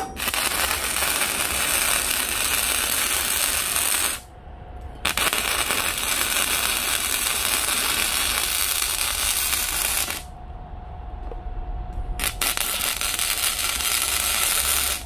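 Stick (arc) welding on a thin steel frame: the arc crackles and sizzles in three runs of about four, five and three seconds, with short pauses between them.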